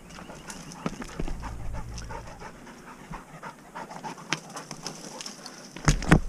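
A working springer spaniel panting hard while it hunts through scrub, over crackling twigs and scuffs on rocky ground. There is a loud knock near the end.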